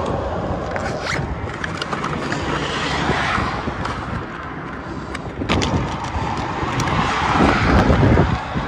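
Road traffic going by, one car swelling louder near the end, over a zipper being pulled open and a few clicks and scrapes of a hand rummaging in a tackle bag's pocket.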